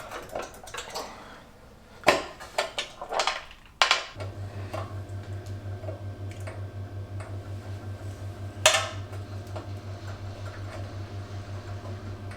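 Metallic clinks and knocks of bolts and the sheet-steel fan tinware being handled and fitted onto the engine, mostly in the first four seconds with one more sharp clink later. From about four seconds in, a low, evenly pulsing hum runs underneath.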